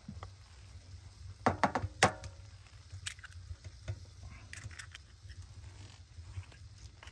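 An egg knocked several times in quick succession against the rim of a metal frying pan, each knock with a short metallic ring, then cracked open over the pan.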